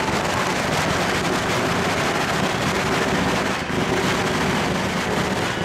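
Loud, steady hubbub of a large crowd.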